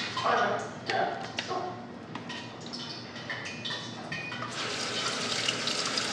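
Light knocks and clicks of kitchen work, then a sink faucet turned on about four and a half seconds in, with water running steadily.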